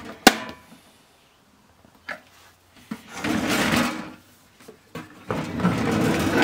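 A sharp click, then two spells of scraping, about a second each, as a Technics 5-disc CD changer is slid and turned on a work tabletop.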